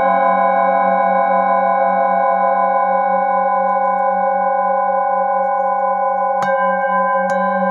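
Several metal singing bowls ringing together in long, overlapping sustained tones, the lowest tone wavering in a slow pulse. A mallet strikes a bowl twice near the end, adding fresh ringing.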